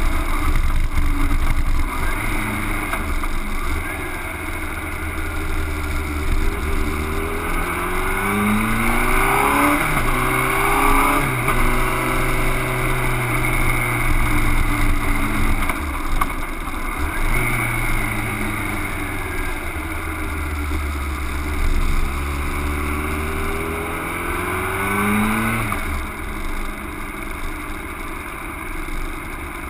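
Honda CBR600RR's inline-four engine running under way, its pitch climbing and dropping several times as the bike accelerates, changes gear and slows, over a steady rush of wind.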